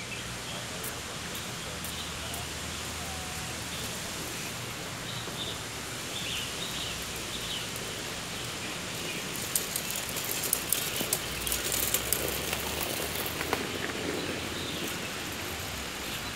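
Outdoor park ambience: a steady even hiss of background noise with a few short bird chirps, and a scattered run of sharp clicks starting about ten seconds in.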